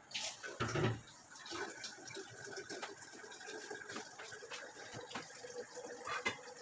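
Pot of chicken and broth simmering on a stove, a steady fizzing, bubbling crackle with small pops, with a brief louder bump about a second in.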